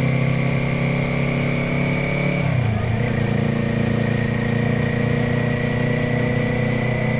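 Motorcycle engine and exhaust running at steady revs, with a brief dip in pitch about two and a half seconds in before it settles again.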